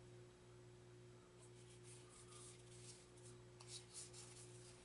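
Near silence: faint rustling of playing cards being handled, twice, over a low steady electrical hum.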